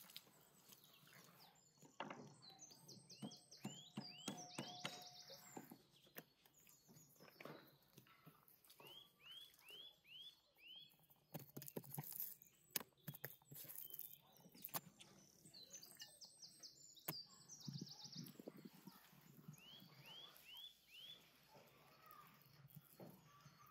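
A songbird singing faintly, repeating the same short phrase of about four quick chirps followed by a high trill three times. A few faint sharp clicks and knocks sound around the middle.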